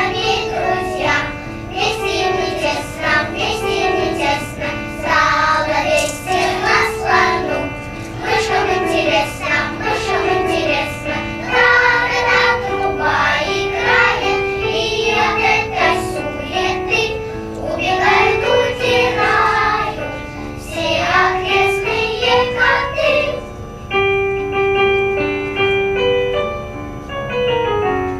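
Children's choir singing with piano accompaniment. About three-quarters of the way through the voices stop and the piano plays on alone.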